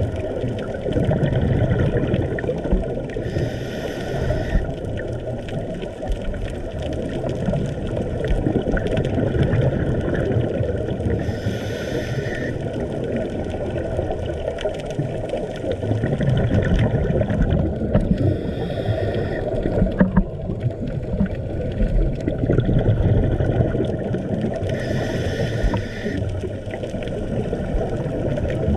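Steady muffled underwater rumble, with a scuba diver's exhaled regulator bubbles hissing four times, about every seven seconds.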